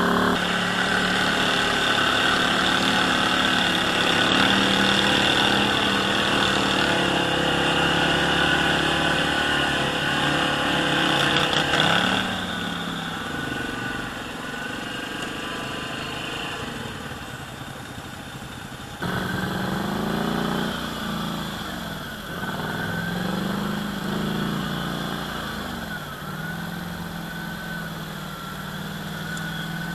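ATV engine running on a trail, its pitch rising and falling with the throttle. It is loudest for the first twelve seconds, eases off, then picks up sharply about nineteen seconds in.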